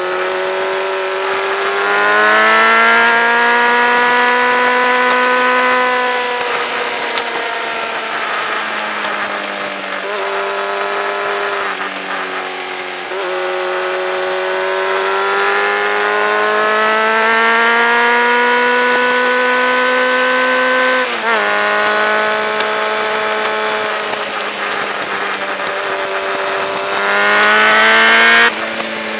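Motorcycle engine at speed on a race track, the revs climbing under acceleration and dropping off into corners several times. There is a sharp gear change about two-thirds of the way through, and the throttle shuts suddenly near the end.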